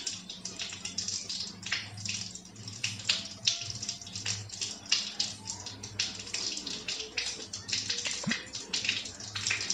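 Rain falling, heard as a dense, irregular patter of splashes, over a steady low hum.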